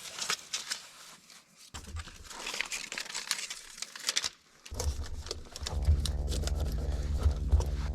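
Tape and a cover piece being handled: crinkling, crackling and tearing. From about six seconds in, a steady hum at one fixed pitch sets in.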